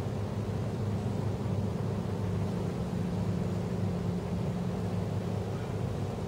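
Steady low background rumble with a faint hiss, unchanging throughout, with no distinct clicks or other events.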